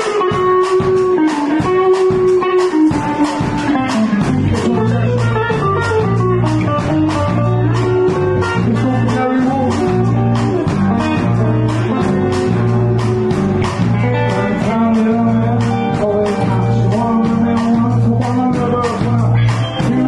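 Live blues-rock band playing: an electric guitar on a thinline Telecaster-style guitar carries a riff over drums, and a repeating bass line comes in about four seconds in.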